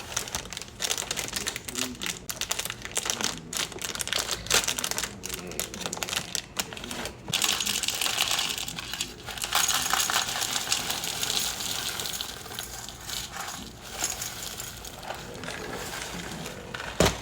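Dry breakfast cereal being opened and poured into a bowl: a plastic bag crinkling and small hard pieces clattering. There is a denser, steadier pouring rattle in the middle.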